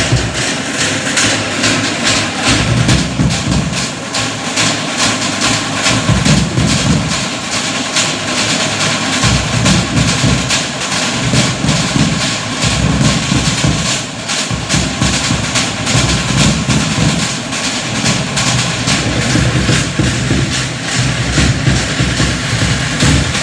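Live ensemble of large drums playing a fast, steady beat as accompaniment to a Samoan fire knife dance.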